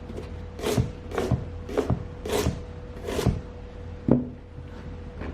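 A carrot being worked by hand in a kitchen: about five rasping strokes roughly half a second apart, then a single knock about four seconds in.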